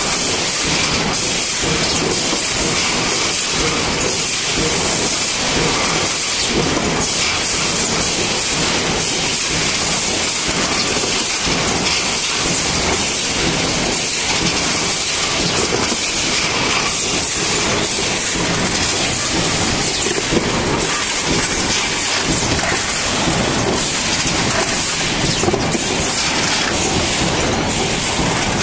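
Multi-station pneumatic sealing-strip forming line running: a steady, loud, mostly high hiss of machine noise with a dense run of small clicks and clatter, never pausing.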